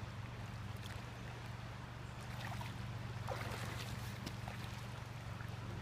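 Faint splashing of river water in the shallows as a landing net is held in the water for a hooked salmon, a few short splashes between about two and four seconds in, over a steady low hum.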